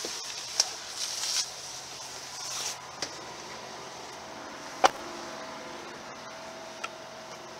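Clothing and seat rustling as someone climbs out of the back seat of a car. About five seconds in comes one sharp thud of the rear passenger door being shut.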